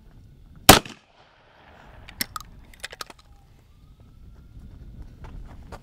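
A single 12-gauge shotgun blast from a short-barrelled Henry single-shot break-action shotgun, less than a second in. Several sharp clicks follow a couple of seconds later.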